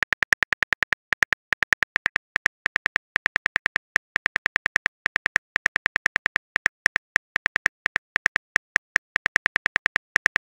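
Phone keyboard click sounds in a rapid, even run, about seven taps a second with brief pauses now and then, each click one keystroke as a text message is typed out.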